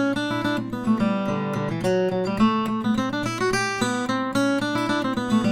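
Acoustic guitar playing a passage of distinct single notes over changing bass notes.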